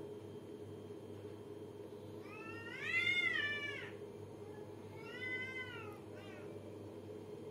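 Two cats yowling at each other in a face-to-face standoff, the drawn-out moaning of a cat confrontation. A long yowl that rises and falls comes about a third of the way in, a shorter one a couple of seconds later, then a brief third, all over a steady low hum.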